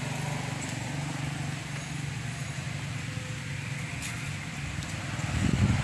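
A steady low engine hum, like a motor vehicle running, with low wind rumbling on the microphone rising near the end.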